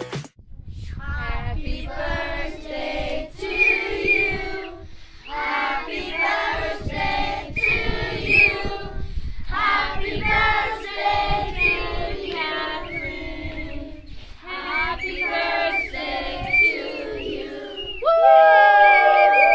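A group of children singing together in phrases with short breaks between them, with a low rumble underneath. Near the end the singing gives way to a louder, steady held sound.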